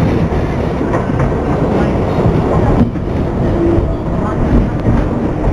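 New York City subway 7 train running on elevated track, heard from inside the car: a steady rumble of wheels on the rails.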